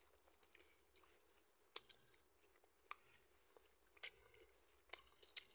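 Faint eating-by-hand sounds of a rice and meat curry meal: soft chewing with a handful of sharp little clicks and smacks spaced about a second apart.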